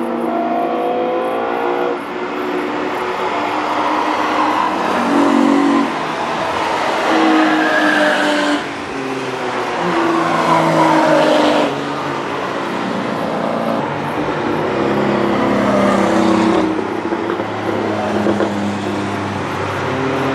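Several cars running at speed on a race circuit, their engine notes overlapping and rising and falling in pitch as they accelerate and pass, with louder swells every few seconds.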